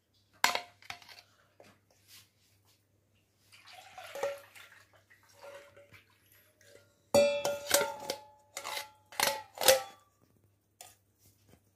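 Utensil tapping and scraping against a blender jar and dishes while freshly churned butter is scooped out. The sharp, ringing clinks come scattered at first, then in a quick run of strikes from about seven to ten seconds in.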